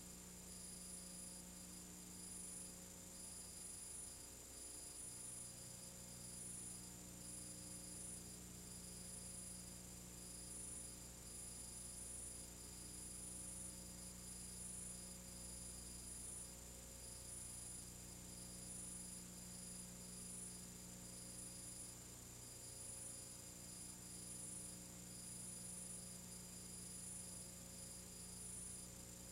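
Faint steady mains hum with hiss and a thin, high, flickering whine, and no other sound.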